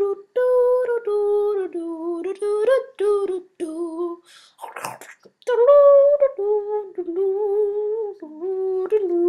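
A child's voice humming a slow, wordless tune in long held notes that step up and down, with a short breath about five seconds in.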